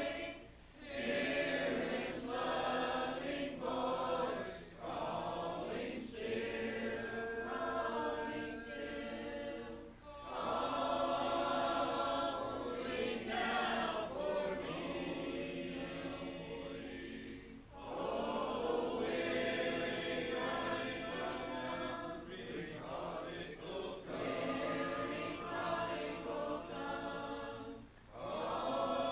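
Church congregation singing a hymn a cappella, many voices together, with brief breaks between the lines.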